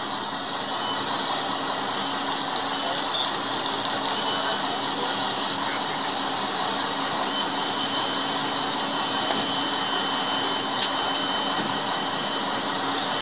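Fire apparatus engines running steadily at a fire scene: a constant mechanical drone with a low steady hum.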